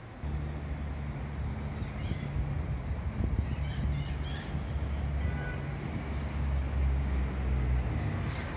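Low, steady drone of a vehicle engine running nearby, with a few short bird calls a few seconds in.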